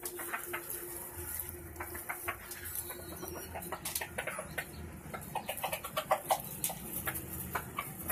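Chickens in a coop making soft calls, with scattered clicks and rustling as a gamecock is handled. A steady tone sounds for the first three seconds.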